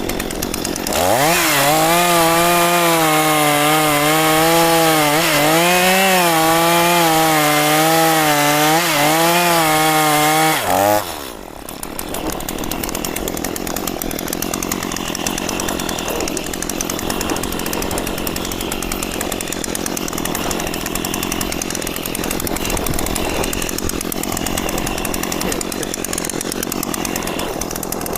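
Chainsaw revving up about a second in and running at full throttle through wood for about ten seconds, its pitch dipping and recovering as the chain loads in the cut. It then drops off suddenly to a lower, rougher, steady running.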